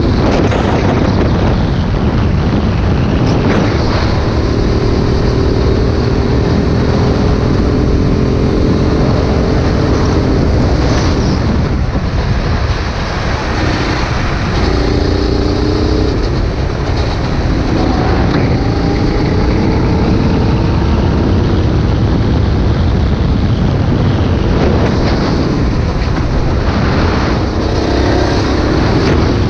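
Go-kart engine running hard, heard from on board the Sodi kart, over a heavy rushing noise. The engine pitch rises and falls several times as the kart accelerates down straights and slows for corners.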